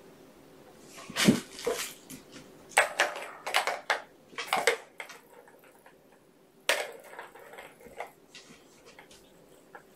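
Kittens moving and playing about a room: irregular knocks, scrapes and rustles, clustered about a second in and again from about three to five seconds in, with one sharp knock near seven seconds.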